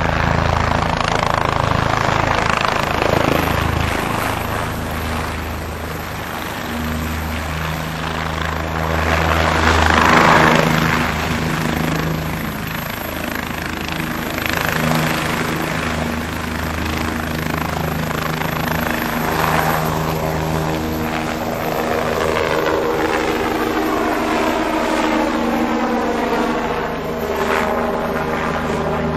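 Bell helicopter in flight, its rotor and engine running steadily. It is loudest about ten seconds in, and near the end the sound sweeps and swirls as it climbs away overhead.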